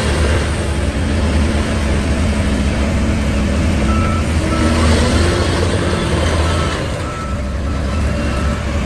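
Heavy diesel construction machinery running steadily, with a reversing alarm beeping about once a second starting about halfway through.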